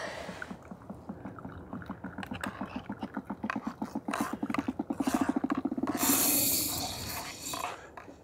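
Hand-pushed plunger coffee press being pressed down into a cup: its seal creaks in a run of squeaks that speed up and grow louder, ending about six seconds in with a second-long hiss of air forced through as the plunger bottoms out.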